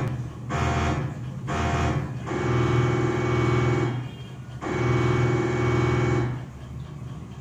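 A battery-powered electronic toy plays a buzzy synthesized tune through a small speaker: two short notes, then two long held notes of about a second and a half each, with brief gaps between them.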